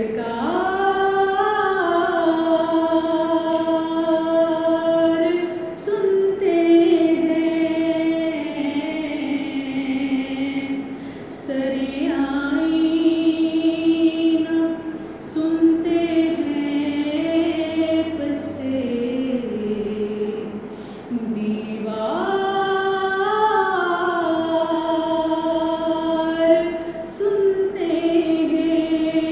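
A woman reciting a naat unaccompanied: one female voice singing long, held notes with ornamented glides up and down in pitch. She breaks off briefly for breath a few times.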